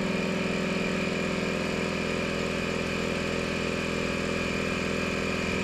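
12-volt electric air compressor running steadily, pumping up the truck's rear suspension helper air bags to around 60 psi. A loud, even hum.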